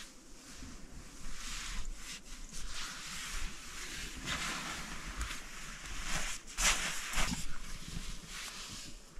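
Blankets and bedding rustling as someone moves about on the bed, in irregular bursts, loudest about two thirds of the way through.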